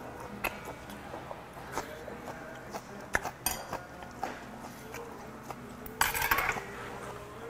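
Metal chopsticks and a spoon clicking and clinking against bowls and side dishes during eating, with a short, loud rushing noise about six seconds in.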